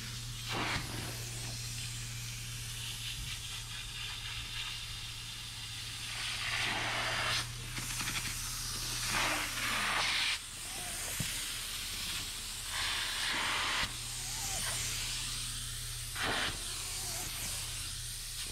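Upholstery cleaning tool on an extractor hose, hissing with suction in repeated passes over a fabric recliner arm, some of them a few seconds long. A steady low machine hum runs underneath.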